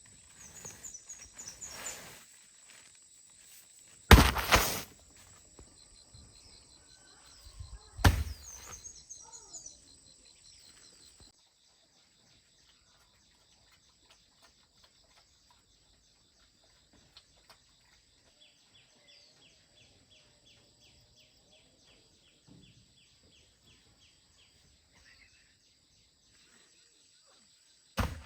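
Two heavy thuds about four seconds apart, like loads being dropped onto a pile during hand loading, with shuffling and scraping between them. Then it goes quiet apart from a steady high buzz and faint ticking.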